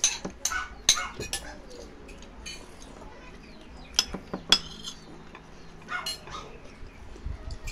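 Spoons clinking and scraping against ceramic plates and bowls of rice and soup as children eat, in scattered sharp clinks with quiet stretches between.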